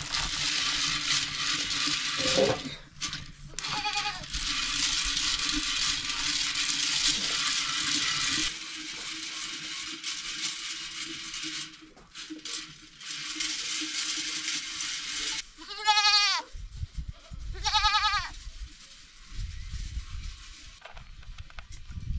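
Goats bleating: two loud, quavering bleats near the end, with fainter ones earlier, over a steady hiss that drops away about eight seconds in and returns for a few seconds later.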